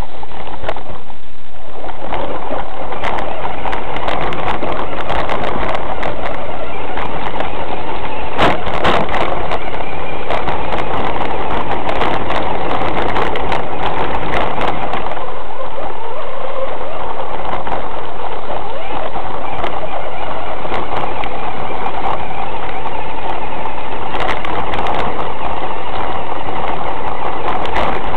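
A 1/6-scale RC Hummer's motor and drivetrain heard through its own on-board camera, running loud and steady while the truck drives over gravel and through grass, with scattered clicks and knocks from the chassis and stones.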